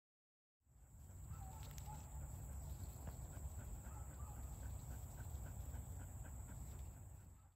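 Quiet calls from a small flock of ducks close by, over a low rumble of wind on the microphone and a steady high hiss, with a run of short, regular chirps in the middle.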